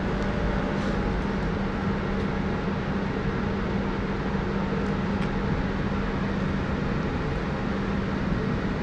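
Electric locomotive humming steadily, a low even tone over a constant wash of noise.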